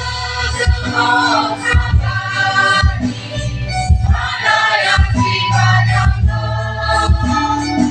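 A choir singing a Christian song over instrumental accompaniment, with a sustained bass line and drum-like hits.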